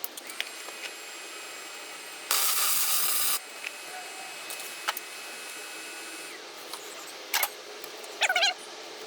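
Wire-feed welder striking an arc for a tack weld: about a second of steady arc hiss and crackle that cuts off sharply. A few light clicks and knocks follow.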